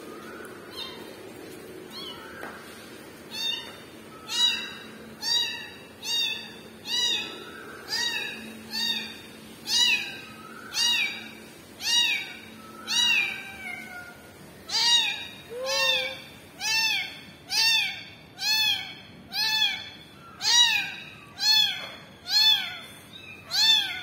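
A young kitten meowing over and over, short high-pitched cries that each rise and fall, about one a second: a kitten crying for its mother. The first few calls are faint, then they come loud and steady from about three seconds in.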